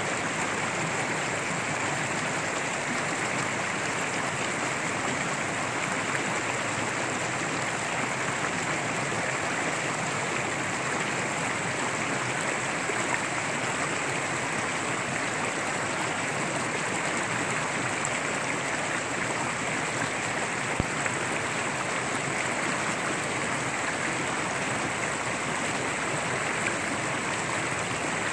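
Shallow rocky mountain stream rushing steadily over riffles and around boulders, with one brief click about two-thirds of the way through.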